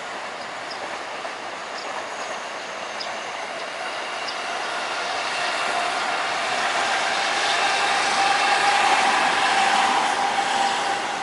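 Electric commuter train running past on the line, its rolling noise building to a peak about nine seconds in and starting to fade near the end, with a steady whine rising over the rumble as it passes.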